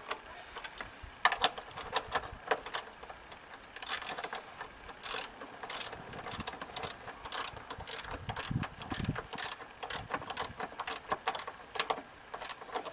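Socket ratchet clicking in uneven runs of strokes as the 15 mm bolts of an engine torque-strut mount are snugged down by hand.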